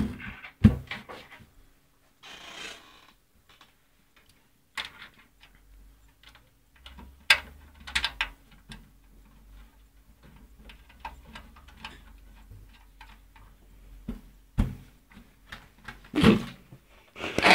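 Metal desktop computer case being handled and shifted about: scattered knocks, clicks and rubbing, with a few sharper knocks.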